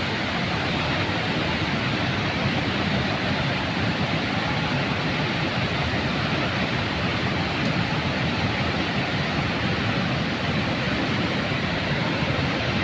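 Mullai Periyar river in flood: a steady, loud rush of fast-flowing water.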